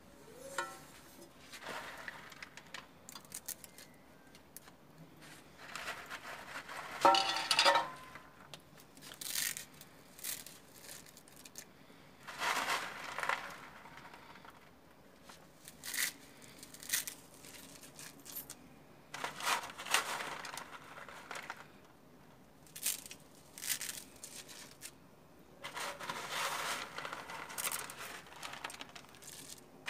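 Bursts of crinkling and crackling as a paper wrapper of dry noodles is handled and the strands are dropped into a steel pot, with a short metallic clatter about seven seconds in.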